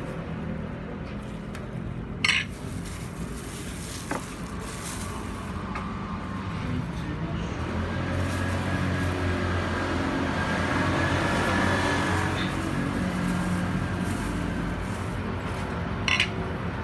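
A few sharp metallic clinks, about two seconds in, about four seconds in and near the end, from hand tools and scooter drivetrain parts being handled, over a steady low rumble that swells in the middle.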